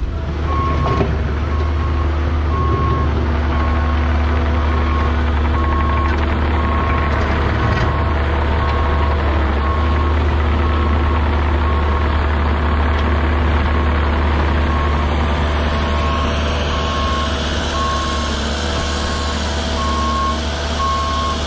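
Cat 306 Next Gen mini excavator running, its travel alarm beeping over and over at an even pace while the machine drives on its tracks, over the steady hum of its engine.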